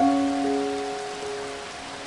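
Steady rain hiss under soft instrumental music: one note is struck at the start and another about half a second in, and both ring on and fade slowly.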